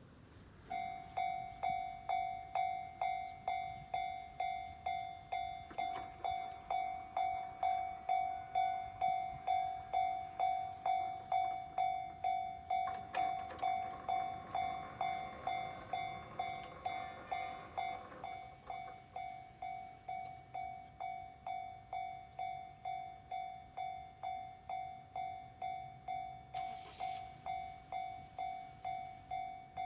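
Japanese railway level-crossing warning bell starting to ring about a second in and going on at about two strikes a second, the crossing signal that a train is approaching. A rushing noise swells and fades under it in the middle.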